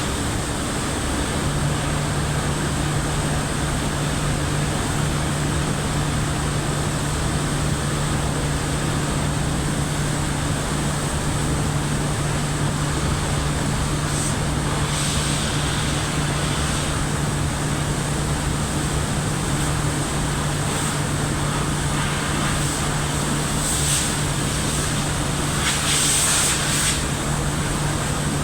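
Industrial boiler furnace running: a steady roar with a constant low hum underneath. Short bursts of hiss rise over it about halfway through and again near the end.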